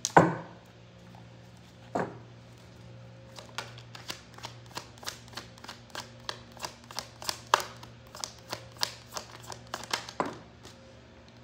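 Tarot deck being shuffled by hand: a thump, another about two seconds later, then a run of quick sharp card snaps, about three a second, ending in a thump.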